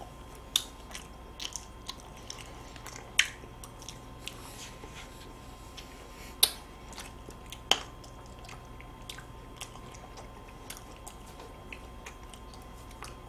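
Close-miked eating of chocolate-cookie ice cream sandwiches: quiet chewing with scattered short, sharp mouth clicks and bites, the sharpest about half a second, three, six and a half and almost eight seconds in.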